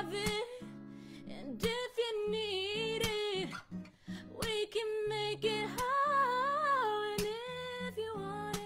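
A woman singing long held notes with vibrato, accompanying herself on an acoustic guitar strummed in slow chords.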